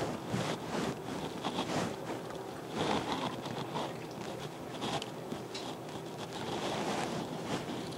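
Wet squishing and rubbing of gloved hands working seasoning paste into whole raw fish in a glass baking dish, with irregular small clicks and scrapes.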